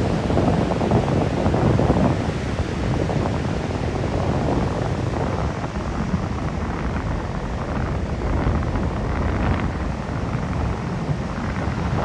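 Wind buffeting the microphone in uneven gusts, over the steady wash of sea surf.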